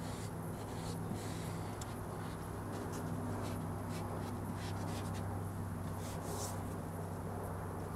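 Plastic squeegee rubbing and scraping in short strokes over a wet vinyl window decal on car glass, pushing water out from under the vinyl. A steady low hum runs underneath.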